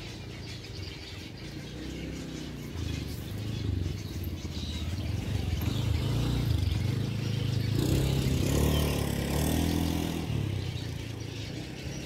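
A motor engine running with a low, steady hum. It grows louder to a peak about eight to ten seconds in, then eases off.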